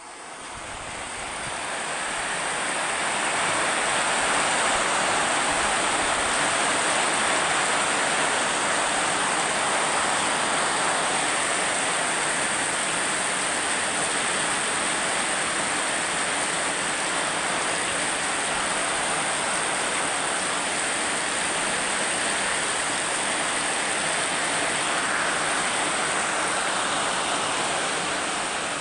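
Steady rain, an even hiss of falling water that fades in over the first few seconds.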